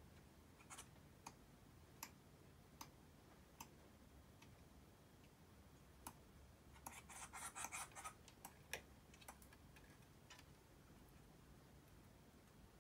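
Faint, scattered clicks, then a brief burst of scratching about seven to eight seconds in: a possum's claws scrabbling on timber as it climbs down to its wooden nest box.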